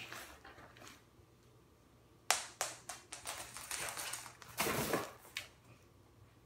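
A cat's paws and claws clicking and scrabbling on a hard wood-look floor as it dashes after a treat: one sharp click at the start, then a quick run of clicks and scuffs from about two seconds in, lasting about three seconds.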